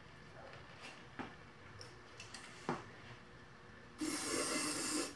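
Aerosol can sprayed through a thin extension straw into a small engine's spark plug hole: one steady hiss about a second long near the end. Before it come a few light knocks of tools being handled.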